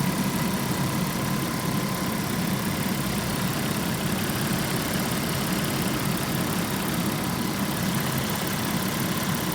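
Volkswagen Passat B5.5 V6 engine idling steadily, with a weird noise the owner calls trumpeting or rubbing. A faint high tone over the engine fades out about seven seconds in.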